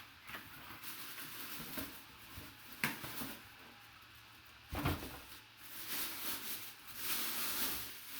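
Handling of a boxed football helmet and its packaging: a sharp click about three seconds in, a low thump near five seconds, and rustling near the end.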